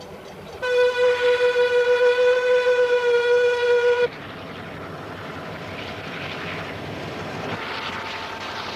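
A railway horn sounds one long, steady single-note blast. It starts about half a second in and stops abruptly at about four seconds, after which a steady rushing rumble remains.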